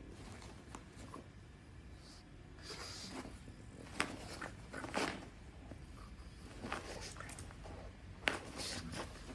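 A pug scrabbling and rooting around in a plush dog bed: soft rustling of fabric with a few sharp clicks and knocks, the loudest about four seconds in and again near the end.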